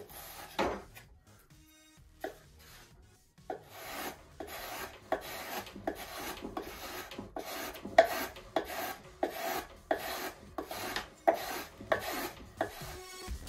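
Razor plane shaving a balsa wood block: a few scattered strokes, then from about three seconds in a steady run of short scraping strokes, roughly two a second.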